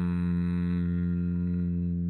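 Didgeridoo playing a steady low drone, its brighter overtones thinning out in the second half.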